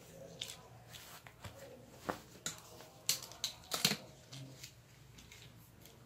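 Grey plastic toy handcuffs being handled and closed on a wrist: a scatter of sharp plastic clicks and rattles, thickest and loudest in the middle.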